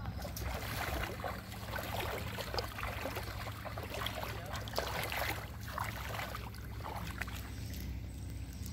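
Water lapping and splashing in uneven small bursts, over a steady low hum.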